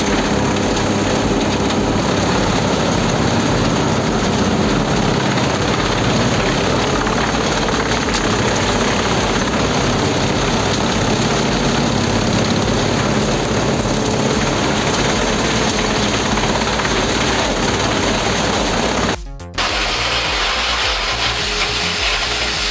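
Wood chipper running steadily under load, a dense mechanical noise. About 19 s in it cuts off abruptly and a different, hissier, higher-pitched machine noise from a wood crusher begins.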